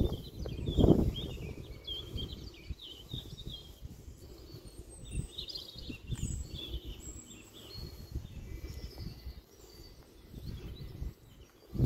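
Wild birds chirping and trilling in short phrases throughout, over an uneven low rumble of wind on the microphone that gusts loudest about a second in.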